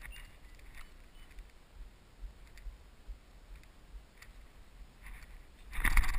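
Faint scattered ticks and light footsteps on a dirt path through scrub. About half a second before the end, a sudden loud rush of rustling noise as the shotgun is swung up to the shoulder.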